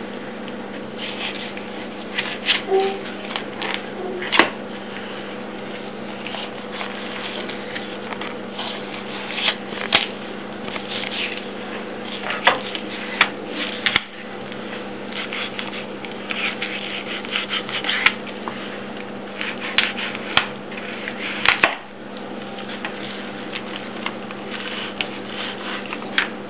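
Knife cutting and scraping through a cold wels catfish on a plastic cutting board as the flesh is worked off the ribs: scattered short scrapes, ticks and rustles over a steady low hum.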